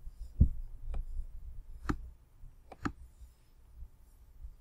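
Computer mouse clicking: about five short, sharp clicks spread over a few seconds, two of them close together near the end.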